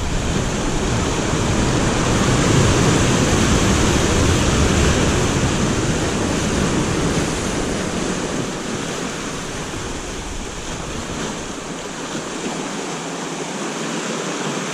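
Atlantic surf breaking and washing over volcanic rocks below in a steady rush of water. A low wind rumble on the microphone fades away about halfway through.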